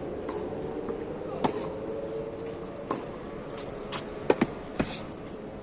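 Tennis rally: sharp pops of a tennis ball struck by racquets roughly every second and a half, with lighter ball bounces in between, over a steady background hum.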